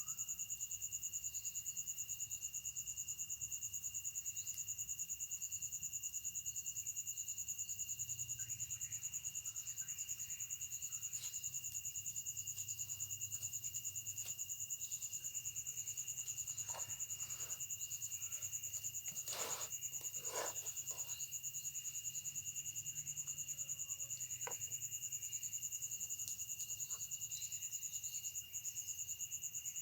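A steady chorus of night insects trilling at several pitches in a fast, even pulse. A few brief faint sounds rise over it about two-thirds of the way through.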